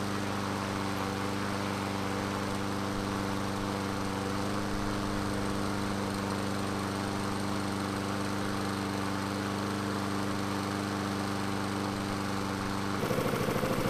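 Walk-behind lawn mower's small engine running at a steady speed, without hunting, its carburetor freshly cleaned. Near the end the sound changes to a louder, pulsing note as the throttle is shut back to idle.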